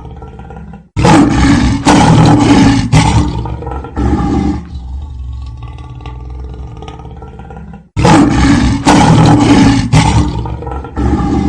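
A ringtone playing on a loop: a loud, rough burst about three and a half seconds long starts about a second in and repeats about seven seconds later, with a quieter sustained tone between.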